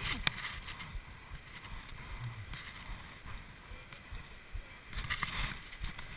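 Wind rumbling on an action camera's microphone, with scattered small clicks and rustles, a few louder ones about five seconds in.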